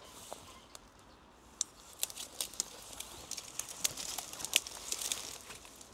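Irregular crackling and rustling of vegetation brushing against clothing, with sharp little snaps that grow denser from about two seconds in.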